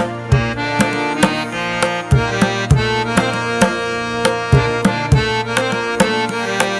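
Background music with a steady drum beat: hand-drum strikes over a sustained reed-like melody.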